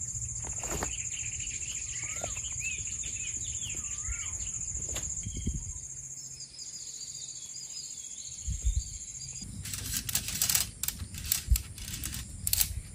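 Forest ambience: a steady high-pitched insect drone with birds calling in short warbling notes. About nine seconds in, the drone stops and a run of quick crackling clicks and rustles takes over.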